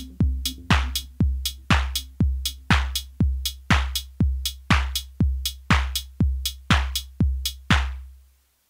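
Elektron Model:Cycles drum machine playing a four-on-the-floor club beat: a kick about twice a second with hi-hat-like hits between the kicks, over a low synth bass line that drops out about halfway. The beat stops near the end, the last kick dying away.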